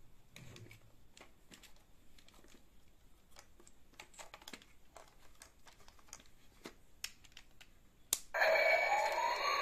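Faint clicks and taps of a plastic panda robot toy being handled. About eight seconds in, a switch clicks and the toy's speaker starts playing loud electronic music with a rising sweep.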